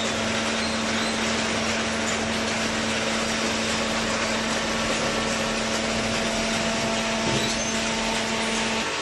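Large horizontal hydraulic cardboard baler running: steady, loud machine noise with a steady hum that cuts off near the end.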